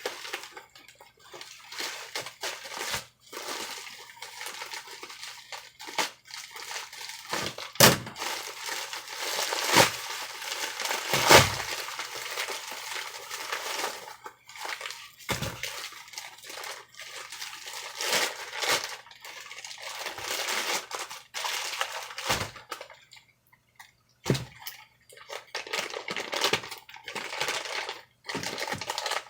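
Parcel packing material being pulled apart and unwrapped by hand: steady crinkling and rustling with sharp snaps and cracks, the loudest two or three about eight to eleven seconds in.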